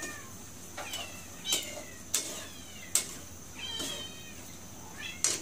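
A cat meowing several times in short, arching cries, with a few sharp clicks in between.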